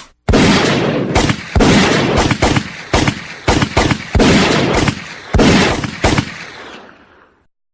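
Gunfire: about a dozen loud shots fired at an irregular pace, each with a ringing echo tail, the last one dying away near the end.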